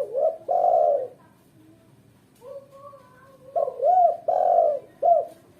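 Female spotted dove cooing in two phrases: short arched coos and a longer held coo at the start, a few soft low notes, then a second phrase of arched and held coos about three and a half seconds in.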